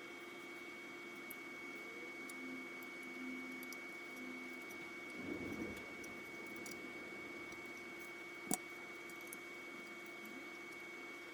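Quiet handling noises over a steady high electrical whine and a lower hum: a short rustle about five seconds in and one sharp click about eight and a half seconds in, with a few faint ticks.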